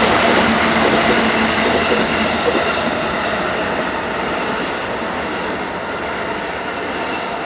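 Train passing over a multi-track level crossing, its running noise steady and then slowly fading as it moves away.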